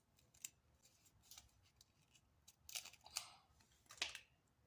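Faint, scattered rustles and light clicks of stickers being peeled from a sticker sheet and pressed onto a toy locker, with a few brief scratchy bursts of handling.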